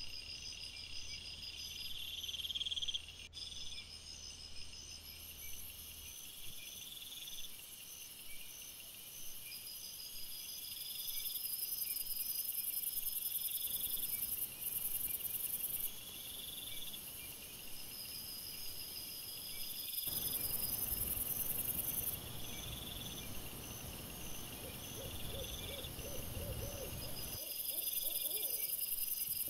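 Night insects such as crickets chirping in regular repeated short pulses over a steady high hiss. For several seconds past the middle a lower rustling noise joins in.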